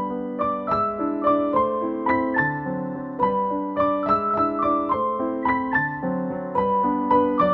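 Background piano music: a gentle melody of single notes played in quick succession over sustained lower notes.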